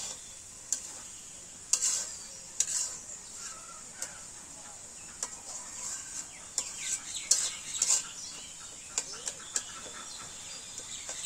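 Flat metal spatula scraping and knocking against a metal karai as a thick mango-pickle mixture is stirred, in irregular strokes. Chickens cluck now and then in the background.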